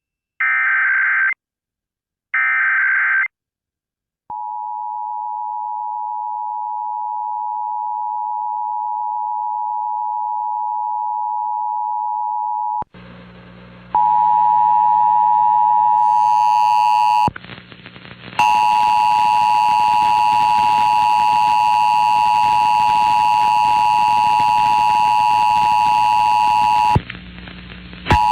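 Emergency Alert System broadcast tones. First come three short screechy digital data bursts of the alert header. Then the steady two-tone attention signal (853 and 960 Hz) sounds for about eight seconds. A little after ten seconds the tone breaks off into a hum, then comes back louder and buzzier, with two brief dropouts.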